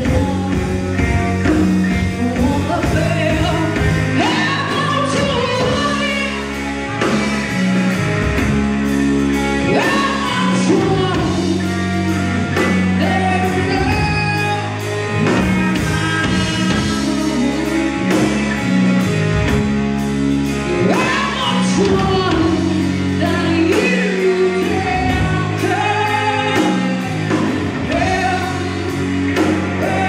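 A live rock band playing: a female singer singing over electric guitar, bass guitar and a drum kit.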